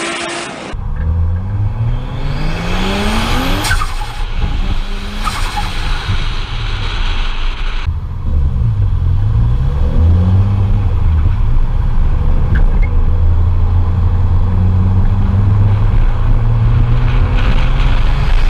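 Turbocharged car engine accelerating hard, its pitch rising and dropping through several gear changes, with short hissing bursts between shifts. It settles into a steady drone for the last several seconds.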